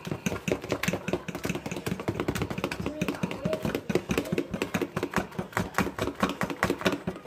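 A fork beating cake batter by hand in a bowl, a fast steady clicking of several strokes a second as the fork strikes the bowl.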